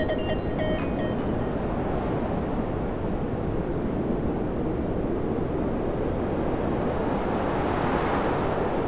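Steady rushing noise, like wind or surf, that swells and brightens about eight seconds in; the last few plucked notes of the music fade out in the first second.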